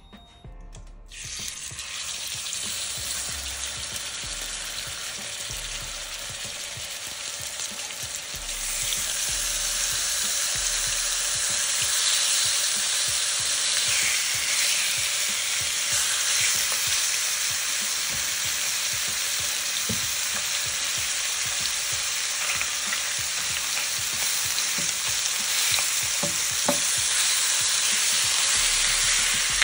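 Pork belly strips sizzling in hot oil in a nonstick grill pan. The frying hiss starts about a second in and grows louder about eight seconds in as more strips go in, then holds steady, with a few faint knocks of tongs on the pan near the end.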